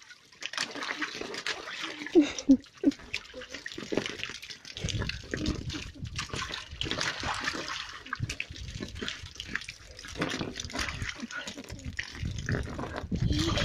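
Water from a garden hose splattering into a shallow inflatable paddling pool while a poodle jumps and splashes about in it, an uneven run of splashes and patters.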